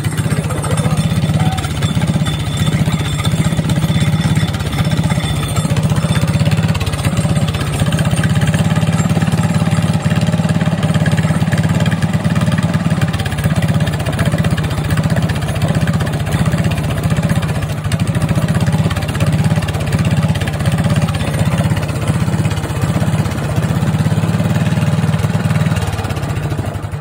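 Small single-cylinder engine running against an Arduino rev limiter, which grounds the ignition coil through a relay. The engine sound dips in short, regular breaks as the limiter cuts the spark, holding it near the set limit.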